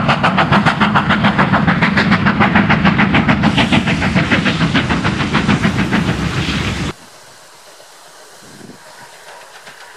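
Steam locomotive working hard, its exhaust beats coming rapid and evenly spaced over a rushing hiss. About seven seconds in the sound cuts off abruptly, leaving only a much quieter, faint steady background.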